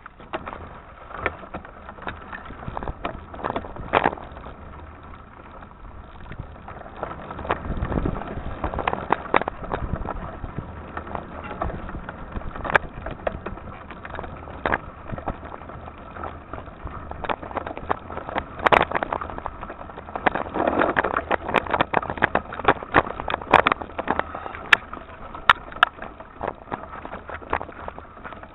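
Mountain bike riding over a rough dirt trail, its parts rattling with many sharp, irregular knocks over a steady rush of tyre and wind noise, heard through a camera mounted on the bike. The knocks come thicker in the second half.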